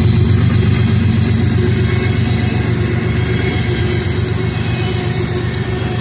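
Freight train of covered hopper cars rolling past at close range: a steady rumble and rattle of steel wheels on rail, easing slightly in loudness.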